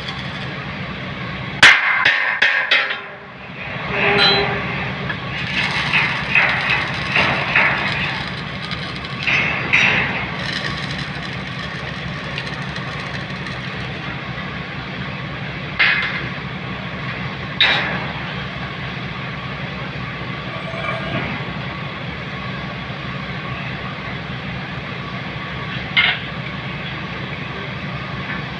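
Arc welding on a steel frame: the arc crackles and hisses in irregular spells over a steady low hum. Sharp metal clicks stand out, the loudest about two seconds in and a few more later.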